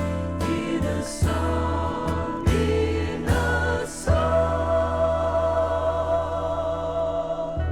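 Gospel music: a choir singing with a band, with a few sharp accented hits, then a long held chord from about four seconds in that breaks off just before the end.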